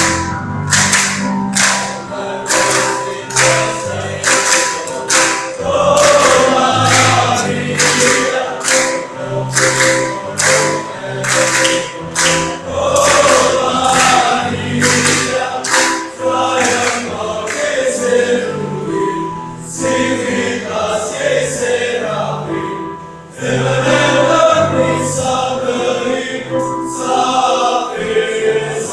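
Choir of young men singing in a reverberant chapel, over a steady sharp beat about twice a second; the beat fades out near the end.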